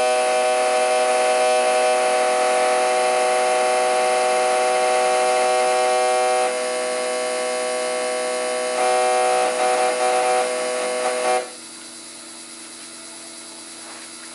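RC1200 low-impedance fuel injectors on a flow test bench, buzzing steadily as they fire at a fast even rate on 2 ms pulses through a resistor box. As the supply is turned down toward 11.5 V the buzz drops a step about six and a half seconds in, which fits the weaker injectors, starved of current by the resistor box, dropping out. It stutters back briefly, then cuts off suddenly near the end, leaving a faint steady hum.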